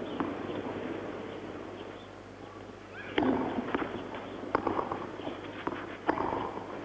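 Spectators murmuring, settling down after about two seconds; then, about three seconds in, a tennis serve and the start of a rally on a clay court: sharp racket hits on the ball a second or more apart, with fainter bounces between.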